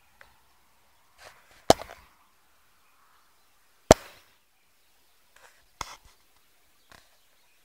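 Several short, sharp knocks: two loud ones about two seconds apart, then a few fainter ones.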